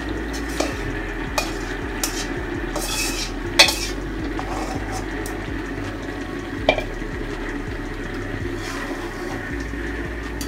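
Fried potatoes tipped into a metal karahi of browning duck curry, then a metal spatula stirring, scraping and clinking against the pan over a steady sizzle. A sharp clank comes a little over three and a half seconds in, and another near seven seconds.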